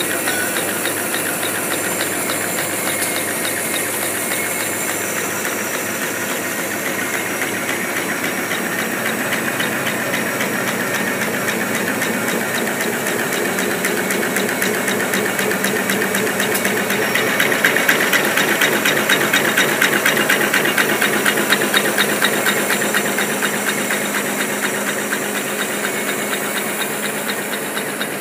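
CJ-type high-speed napkin-folding machine running: a fast, steady mechanical clatter with a hiss, louder in the middle and easing slightly near the end.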